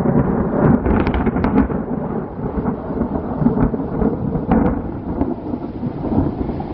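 Thunder from a very close lightning strike, rumbling on at a steady level as heard through a cell phone's microphone. There are sharp crackles in the first couple of seconds.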